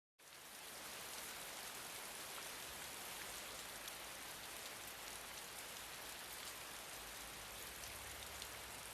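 Steady, even hiss with a few faint ticks scattered through it, much like rain; it starts abruptly just after the music ends.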